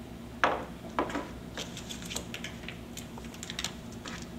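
Handling a roll of rubber mastic tape and its paper backing: two sharp noises about half a second apart near the start, then light crackling and clicking.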